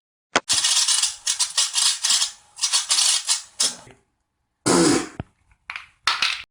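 Rubik's cube being turned fast: quick bursts of plastic clacking and rattling for about three and a half seconds, then a louder short clatter near five seconds and a few brief clicks.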